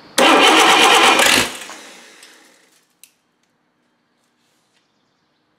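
Continental F245 flathead six with open exhaust firing on the starter: a loud, rapidly pulsing burst of about a second and a half that dies away over the next second, then a single click. It fires but won't stay running, which the owner suspects is poor propane fuel delivery.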